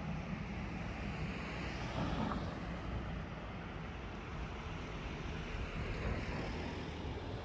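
Outdoor street traffic noise: a car driving along the road, its engine and tyres a fairly steady hum.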